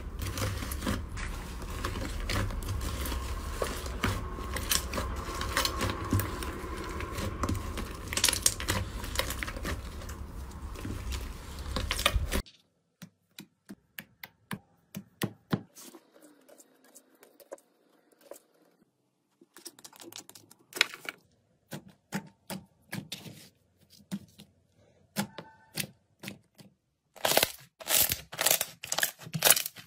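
Slime being handled: hands kneading and pressing a fluffy foam slime give dense, continuous crackling over a low rumble for about twelve seconds. It then cuts to fingers poking into slime, sparse soft pops and clicks with quiet gaps between, and near the end squeezing a ball of slime brings a quick run of loud crackling pops.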